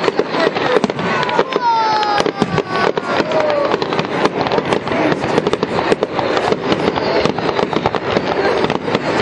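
Fireworks going off in rapid succession: a dense, continuous crackle of pops and bangs, with a falling whistle between about one and four seconds in.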